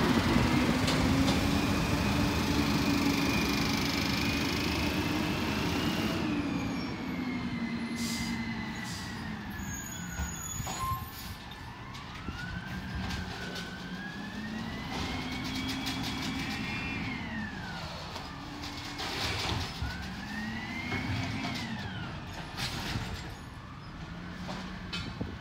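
Garbage truck's engine, with a whine above it, speeding up and settling back in slow rising and falling swells several seconds long. The swells are loudest at first, and there are a few scattered knocks later.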